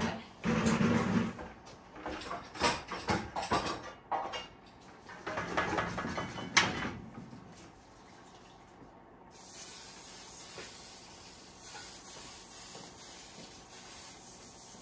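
Metal garden shovels knocked, clattered and scraped against a workbench as they are handled, in loud irregular strikes for about seven seconds, then a quiet stretch.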